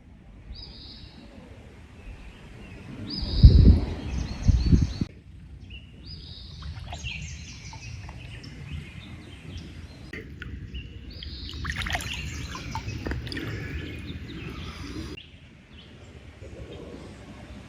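Birds chirping and singing over a steady river rush, with a few loud low thumps on the microphone around four seconds in.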